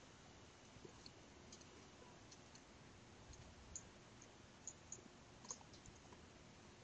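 Near silence: quiet room tone with a handful of faint, brief clicks scattered through the middle seconds.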